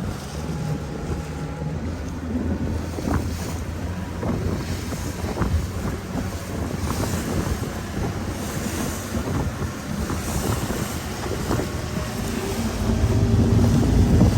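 Tour boat's engine running steadily under wind buffeting the microphone and water rushing past the hull, with occasional light knocks; the engine grows louder near the end.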